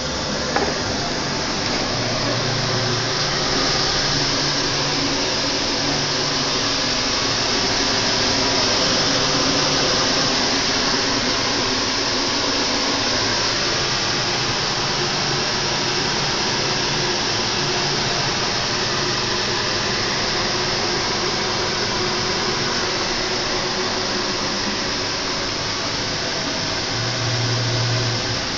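A steady, loud rushing noise with a low hum that comes and goes, early on and again near the end.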